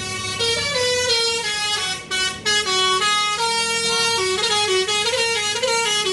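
Musical multi-tone truck horn playing a quick tune, its notes stepping up and down in pitch, with a brief break about two seconds in.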